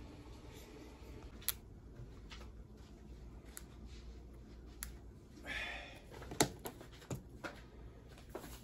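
M&M's candies in a small plastic tube: scattered light clicks, then a short rattle about five and a half seconds in as candies are shaken out onto whipped-cream-topped pancakes.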